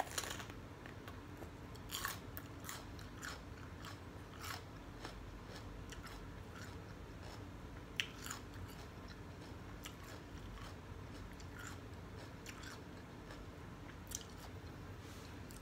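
Raw sweet mini bell pepper being bitten and chewed, with irregular crisp crunches. The strongest crunches come right at the start and about two seconds in, with a sharp single crunch about eight seconds in.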